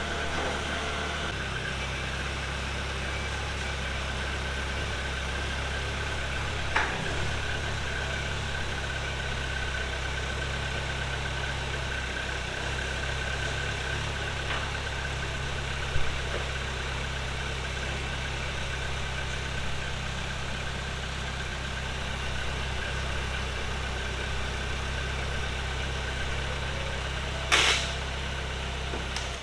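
Propane-fuelled Hyster forklift engine idling steadily, with a thin steady whine above the engine hum. A few sharp clanks break in, the loudest near the end.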